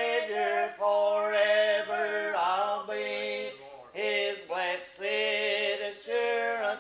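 A voice singing a slow gospel song, phrase by phrase, with some notes held and a slight waver.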